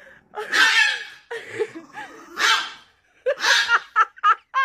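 Chihuahua barking and snarling in high-pitched, breathy bursts, the calls getting shorter and quicker near the end.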